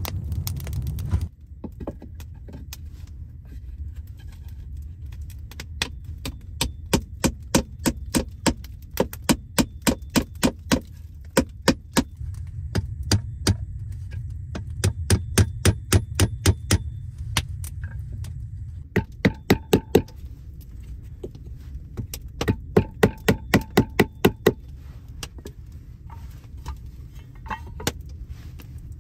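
Hammer driving nails into a log wall: runs of sharp metallic blows, about two to three a second, with short pauses between the runs. A low rumble of the stove fire is heard for about the first second.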